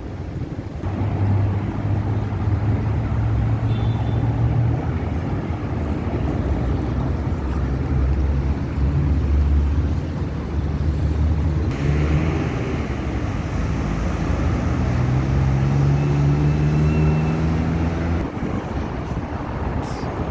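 Road traffic: car engines running and passing, with one vehicle's engine rising in pitch as it accelerates near the end.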